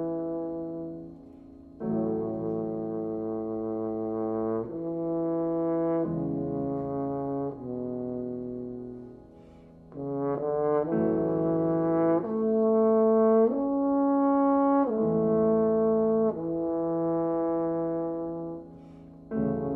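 French horn playing a slow melody of long held notes in phrases, with a grand piano accompanying. About halfway through, a quick run of short notes leads into a louder, fuller passage.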